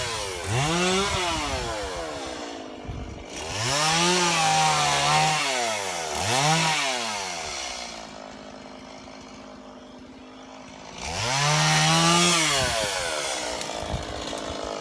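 Chainsaw engine revved up and let back down several times, its pitch rising and falling with each rev. It settles to a quieter, steadier run in the middle before revving hard again near the end.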